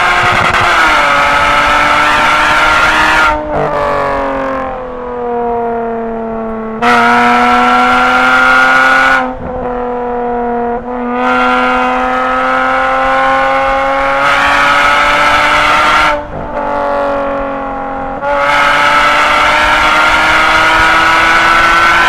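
Toyota Camry V6 with a straight-through exhaust, pulling under throttle with a slowly rising pitch. Three times, at about 3 s, 9 s and 16 s in, the throttle is lifted: it goes quieter and the pitch sinks for a couple of seconds, then it comes back loud on the throttle.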